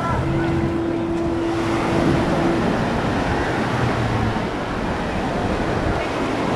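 Small waves washing up on the sand at the shoreline, with wind rumbling on the microphone. A steady humming tone runs through the first two seconds or so, then stops.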